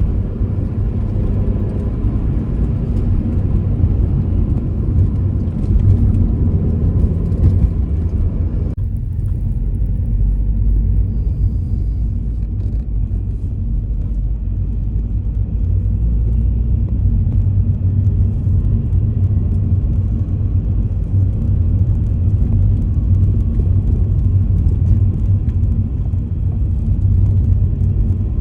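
Car driving at steady speed, a continuous low engine and road rumble. About nine seconds in, the higher hiss above the rumble drops away.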